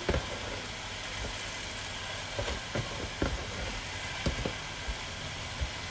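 Food frying in a hot pan with a steady sizzle, and a scatter of light knocks from about two and a half seconds in as handfuls of shredded vegetables and glass noodles are dropped in.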